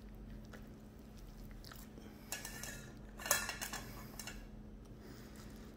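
Faint clatter of a gloved hand picking peeled garlic cloves out of a stainless steel bowl: a few light clinks about two seconds in, then a louder rattle of cloves against the bowl a little after three seconds, over a faint steady hum.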